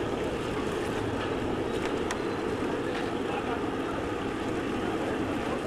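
Steady roar and sizzle of deep frying: gas burners under large karahis of hot oil, with battered pieces bubbling in the oil and a few faint utensil clicks.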